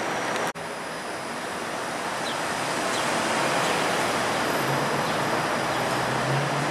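Steady city street traffic noise, an even wash of passing road vehicles, broken by a brief dropout about half a second in; a low engine hum comes up near the end.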